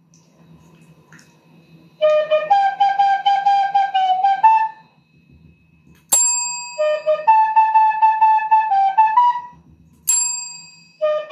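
A short flute-like melody of held, wavering notes, twice, each run followed by a single bright ding of a desk call bell under a Shiba Inu's paw. The bell rings out and fades over a few seconds.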